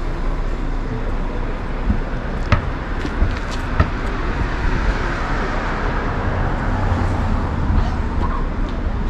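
Steady traffic noise of cars passing on a city street, with a few sharp clicks between two and four seconds in.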